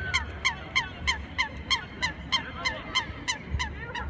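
Geese honking in a steady series, about three honks a second. Each honk falls in pitch, and fainter honks from other birds overlap between them.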